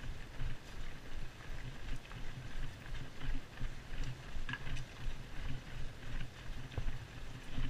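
A runner's footfalls on tarmac, picked up through a body-worn camera as a steady run of dull thumps about three a second, with wind rumbling on the microphone.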